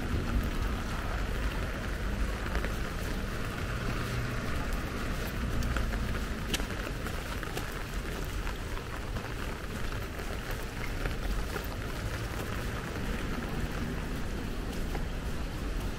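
Steady light rain falling on pavement, a continuous hiss with scattered drips ticking through it, over a low rumble.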